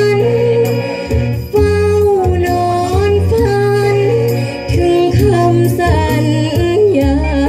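Thai luk thung song playing through the stage loudspeakers, with a melody of long, bending held notes over a steady bass.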